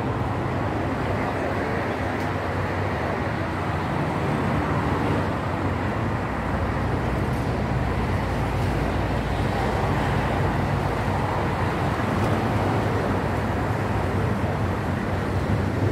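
Steady outdoor background noise with a low rumble, even and unbroken, with no single event standing out.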